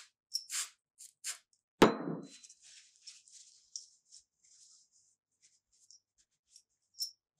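Short hisses of an aerosol spray can aimed at a small steel vise part, then one sharp metallic clank with brief ringing about two seconds in, followed by a longer, fainter hiss and a few small clicks.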